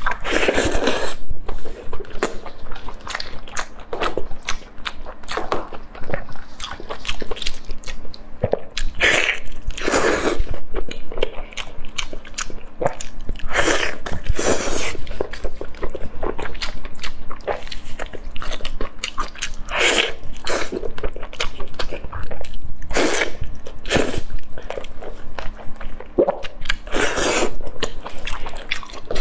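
Close-miked eating of chili-glazed grilled ribs: irregular bites and wet chewing of the saucy meat, with a handful of louder bites spaced through.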